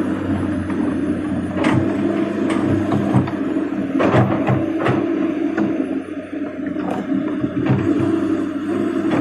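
Komatsu PC200 hydraulic excavator's diesel engine running steadily under work, with a scatter of sharp knocks and clanks.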